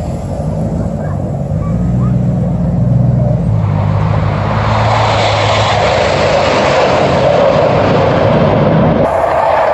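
Military jet fighters flying past at an air show, their jet engine roar building from about three and a half seconds in and then holding loud. A low steady engine hum sits under the first few seconds.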